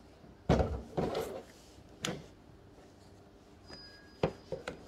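Hard plastic clacks and knocks from a plastic play-dough noodle-maker toy being handled and pressed, several short knocks, the loudest a little after the start and a cluster near the end, with a brief faint squeak just before that cluster.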